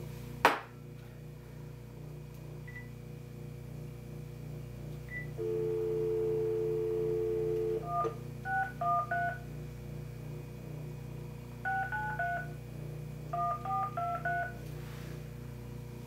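Cordless phone on speakerphone: a short key beep, then a steady two-note dial tone for about two and a half seconds, followed by about a dozen touch-tone (DTMF) digits dialled in three quick groups. A sharp knock sounds about half a second in.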